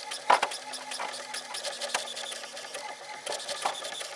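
HP OfficeJet Pro 8023 inkjet printer printing its print head alignment page: the print carriage and paper feed run with a rapid string of clicks over a steady hum.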